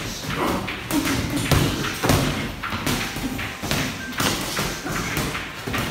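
Boxing gloves thudding and tapping in an irregular run as punches are thrown and land in sparring.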